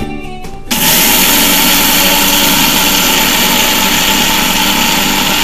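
Electric mixer grinder (Indian mixie) switched on about half a second in and running loud and steady at full speed, grinding roasted moong dal to a fine powder in its stainless-steel jar. Background guitar music plays before it starts.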